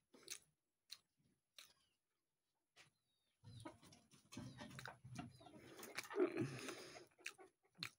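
Mouth sounds of someone eating: sparse, sharp smacks and clicks of chewing, growing denser after a few seconds, with a short laugh about six seconds in.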